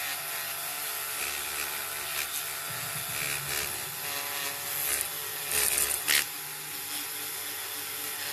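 Rubbing and scraping on a die-cast toy car body as its old paint is worked off, with a few louder scrapes about five to six seconds in.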